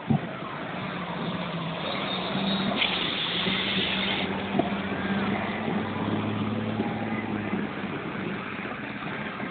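Street traffic with car and truck engines running, heard from a moving vehicle. A hiss lasting over a second comes about three seconds in.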